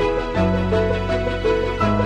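Background music: a gentle melody of held notes over a sustained bass line that shifts to a new note about half a second in and again near the end.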